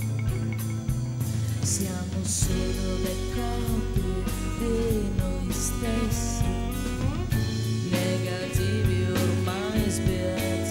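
Live rock band playing a slow song: electric bass and drum kit with a few cymbal hits, with other instruments layered over them.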